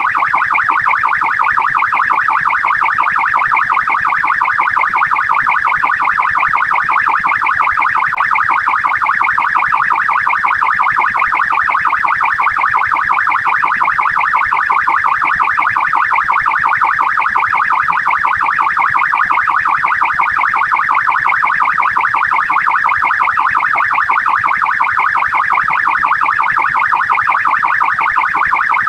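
Australian police car siren sounding continuously, a loud, fast up-and-down warble repeating evenly without a break.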